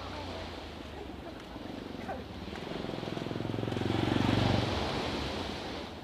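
A motor vehicle's engine passing close by, growing louder to a peak about four seconds in and then fading, over the steady wash of waves on the shore.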